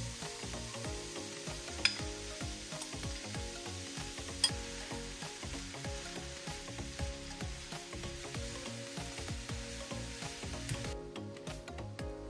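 Cauliflower rice and vegetables sizzling in a hot frying pan as the cauliflower is tipped in and stirred with a wooden spoon. Two sharp utensil clinks, about two and a half seconds apart, stand out early in the sizzle. The sizzle cuts off suddenly near the end, and soft background music plays underneath throughout.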